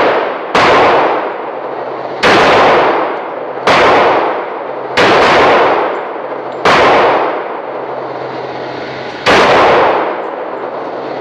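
Glock 41 .45 ACP pistol firing six single shots at a slow, uneven pace, a second and a half to two and a half seconds apart, each shot ringing out in the echo of an indoor range.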